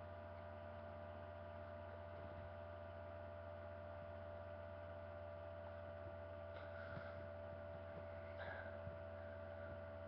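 Steady low electrical hum with a few constant tones, typical of mains hum picked up in a webcam recording. Two faint brief noises come about two-thirds of the way through.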